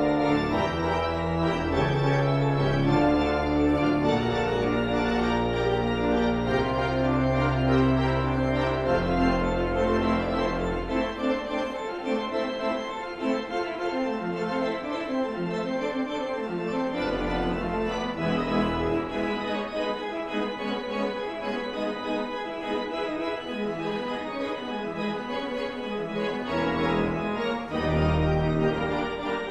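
Organ music: slow, sustained chords over deep pedal bass notes. The bass drops out about eleven seconds in and comes back briefly twice later.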